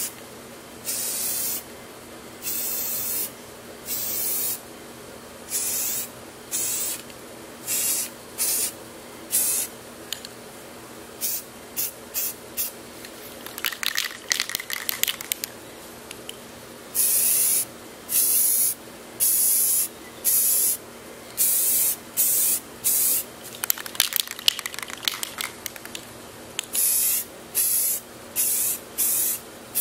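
Aerosol can of flat black spray paint hissing in short bursts of about half a second to a second each, misted over a helmet wrapped in mesh. About a third of the way in and again later come stretches of rapid rattling clicks.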